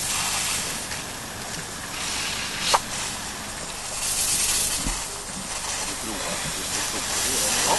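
Miniature live-steam locomotive hissing steam from its chimney, the hiss swelling and easing in waves. A single sharp click comes a little under three seconds in.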